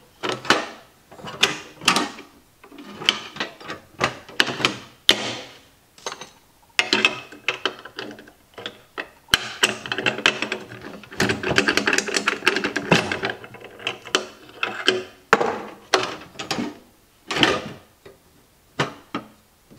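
Repeated metallic clacks and scrapes as the hinged latch of a steel ammo can is snapped open and shut and a padlock is hooked through the U-bolt poking out of the latch. There is a longer run of scraping in the middle.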